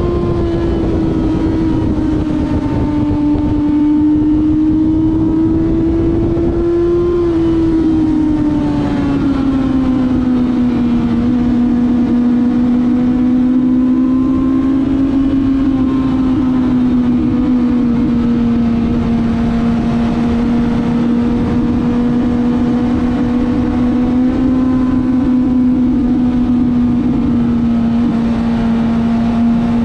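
1995 Honda CBR900RR's inline-four engine running hard at high revs. Its pitch eases down about eight seconds in and then holds steady, over a loud rush of wind noise.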